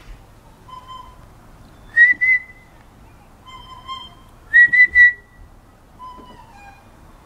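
A person whistling short notes: softer low notes alternate with louder ones about an octave higher, the loudest a quick run of three high notes about five seconds in.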